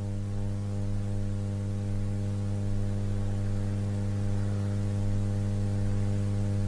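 Steady mains hum from a public-address loudspeaker system: an unchanging low buzz with a stack of overtones.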